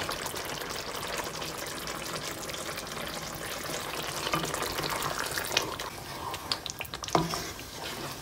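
Chicken in a yogurt-based masala gravy sizzling steadily in a non-stick frying pan over a low flame. From a little past halfway, a wooden spatula stirs through it, with a few light knocks and scrapes against the pan.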